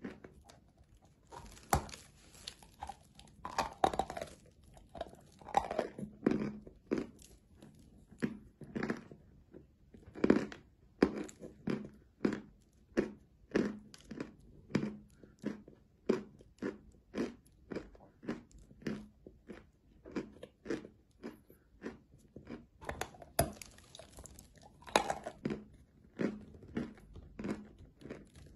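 Chewing a mouthful of lump chalk close to the microphone: steady crunching chews, about one and a half a second. Brighter, denser crunching comes in the first few seconds and again near the end.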